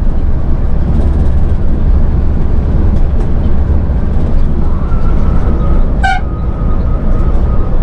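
Volvo B8R bus driving in heavy rain, a steady low rumble of engine and tyres on the wet road under a noise of rain and spray. About six seconds in, a vehicle horn gives one short toot.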